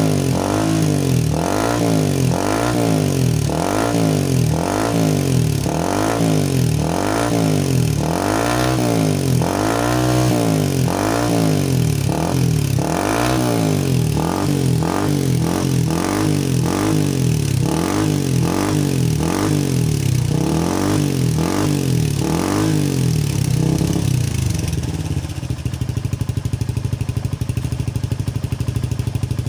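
Motorcycle with a replica Akrapovic exhaust being revved in repeated quick throttle blips, roughly one a second, with one longer rev about ten seconds in. About 24 seconds in it settles to a steady idle.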